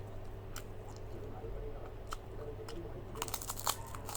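Mukbang eating sounds: chewing with scattered crisp clicks, then a quick run of loud crunches near the end as of biting into krupuk crackers, over a steady low hum.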